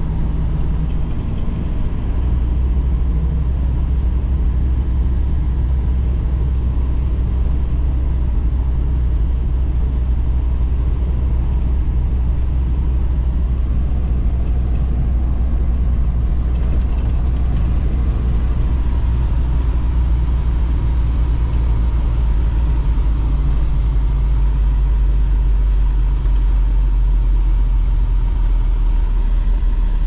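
Truck engine and road noise heard from inside the cab while driving at road speed: a loud, steady low rumble.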